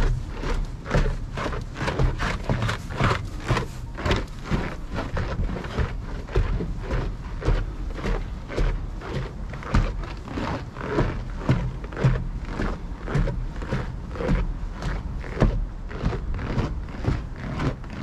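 Footsteps of a person walking at about two steps a second, first up snow-dusted wooden steps and then on a snowy path, over a steady low rumble.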